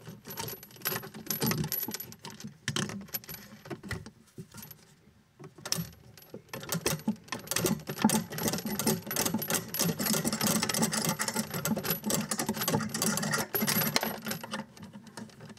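Small metal parts clinking and rattling as a basin tap's fixing nut and horseshoe washer are fitted by hand onto the threaded stud from under the basin, among the braided flexi tails. The clicks come thick and fast, with a short lull about four seconds in.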